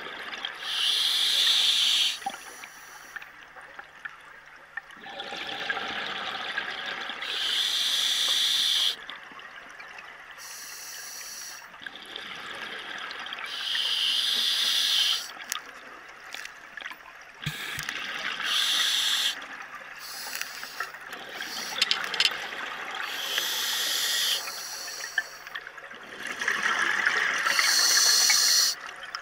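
Scuba diver breathing through a regulator, heard underwater: slow, regular breaths, with a loud rush of exhaust bubbles about every five seconds and a quieter hiss of inhalation between them.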